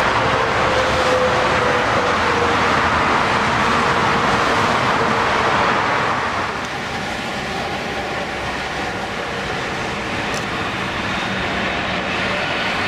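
Jet aircraft engines: a steady roar that eases about halfway through, leaving a fainter steady whine.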